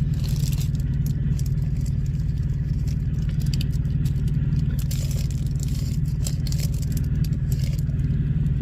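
Packaging crinkling and rustling in short, irregular bursts as items are handled and unwrapped, over a steady low engine hum.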